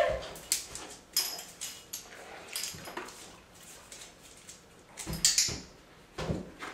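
A large dog's claws clicking and scrabbling on a bathtub and tile floor as it climbs out of the tub and back in, a series of sharp knocks with a heavier thump about five seconds in and again near the end.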